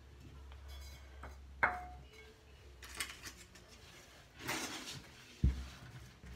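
Small hard household items clinking and knocking as they are handled. There is one sharp clink with a brief ringing tone about a second and a half in, a few lighter taps around three seconds, a swishing rustle a little later and a dull thump near the end.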